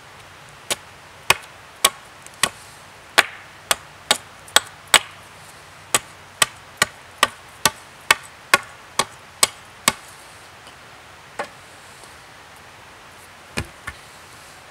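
Axe blade chopping into a wooden stake upright on a stump, shaping its point, about two sharp strokes a second; the strokes stop about ten seconds in, followed by a few single knocks.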